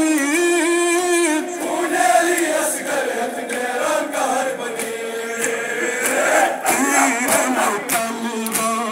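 Men chanting a Kashmiri noha, a Muharram lament, one voice leading with a wavering held note and others joining. Repeated sharp slaps of matam chest-beating cut through, thickest in the second half.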